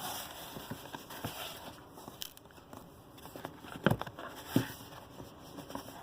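Hands handling a watch's presentation box and packaging: scattered light clicks and rustling, with two sharper knocks about four and four and a half seconds in.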